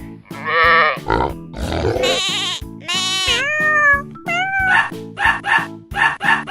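A run of recorded farm-animal sound effects over upbeat children's music: wavering goat and sheep bleats, then short, repeated pig grunts near the end.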